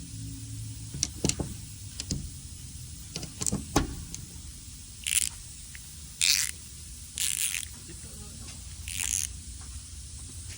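Hand tools on exhaust bolts: a few sharp metal clicks and clinks, then four short rasping bursts about a second apart, typical of a ratchet being worked with a 15 mm socket, over a low steady hum.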